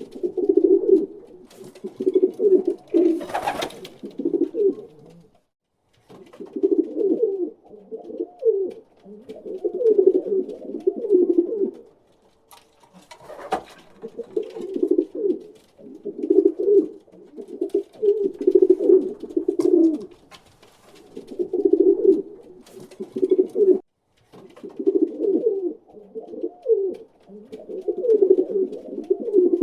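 Pigeon cooing in repeated low, throaty, warbling phrases of a second or two each, with short pauses between them. A couple of brief sharp sounds come about three and thirteen seconds in.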